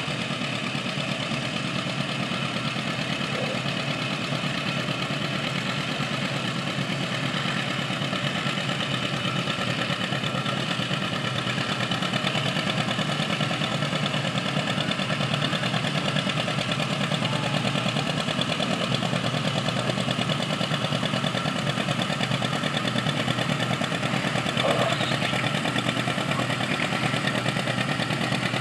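Antique John Deere tractor engine running steadily under heavy load while it pulls a weight-transfer sled down the track.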